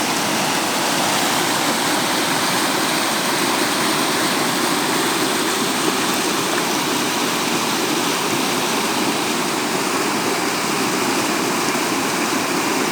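Rushing floodwater: a steady, unbroken noise of fast-flowing water.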